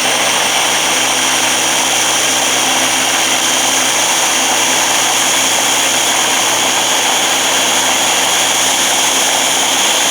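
Electric blender motor running at a steady high speed, blending a smoothie for a last few seconds.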